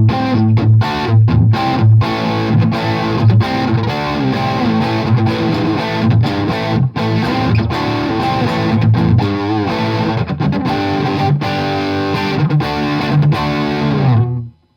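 Bad Cat Love Pup electric guitar played through an Orange Tiny Terror amp set for a dirty crunch tone, chords and notes chopped in a quick rhythm. The playing stops suddenly shortly before the end.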